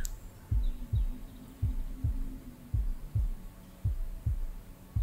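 Slow heartbeat, a soft low double beat repeating about once a second, over a faint steady hum.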